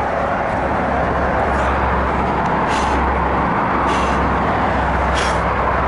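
Steady wind noise rushing over a head-mounted action camera's microphone, with a short hiss roughly every second.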